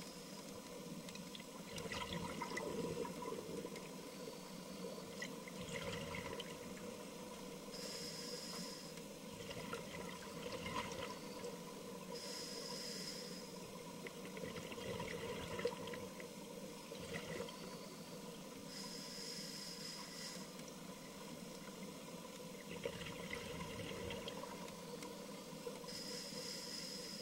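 Scuba diving underwater, with regulator breathing and exhaled bubbles: duller inhalations alternate with hissing bursts of exhaust bubbles every several seconds. A steady faint hum runs underneath.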